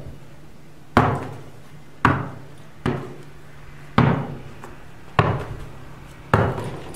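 A basketball bounced on the barn floor six times, about once a second, each bounce a sharp thud followed by a short echo.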